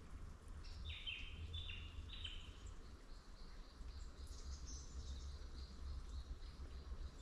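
Birds calling in eucalypt bushland: three short downslurred whistles in quick succession, then a run of higher, thinner chirps, over a faint low rumble.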